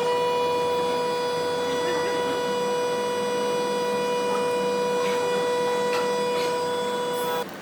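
A power tool's electric motor running free at a steady high-pitched whine, stopping abruptly near the end.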